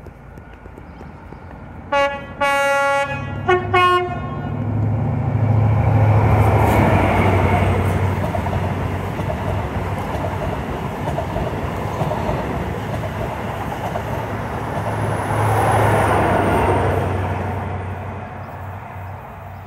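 An East Coast Main Line express passenger train sounds its two-tone horn on the approach: a short and a longer high note, then two short lower notes. It then runs past at speed with a rush of wheel and rail noise over a steady low hum. The noise is loudest just after the horn and again near the end, then fades as the train goes away.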